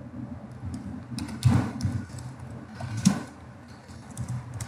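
Typing on a computer keyboard: scattered key clicks at an uneven pace, two of them heavier about a second and a half and three seconds in, over a steady low hum.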